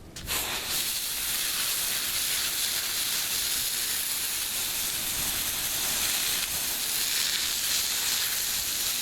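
Water spraying steadily onto a bare window screen frame to wash it: a loud, even hiss that starts just after the beginning.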